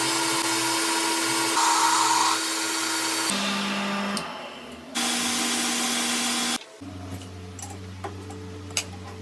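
Metal lathe running with machining noise: a steady motor hum with overtones and a bright hiss. The sound changes abruptly several times, about a third of the way in, about halfway and about two-thirds of the way through, and after the last change it drops to a quieter low hum with a few light clicks.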